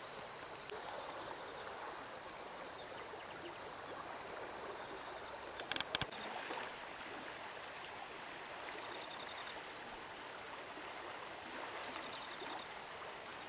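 Shallow stream water flowing steadily over a gravel bed. A short cluster of sharp clicks about six seconds in is the loudest thing, and a bird chirps briefly near the end.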